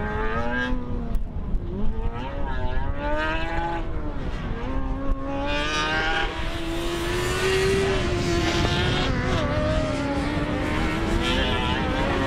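Formula SAE race car's small engine, 610cc or under, revving up and down as the car accelerates and slows through an autocross cone course. Its pitch rises and falls again and again, then holds steadier and higher near the end.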